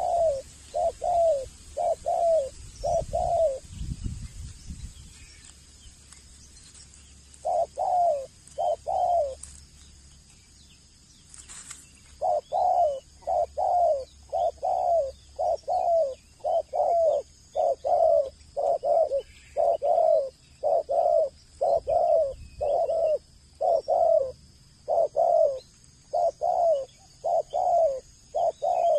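Male spotted dove cooing: short, low coos, each dropping slightly in pitch, given in short runs broken by pauses, then a long unbroken run at about two coos a second.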